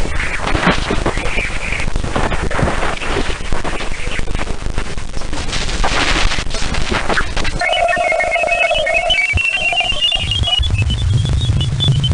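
Space audio of the kind made from spacecraft radio recordings: dense crackling static, then a run of short chirping tones stepping upward in pitch over a steady mid tone, with a low hum coming in near the end.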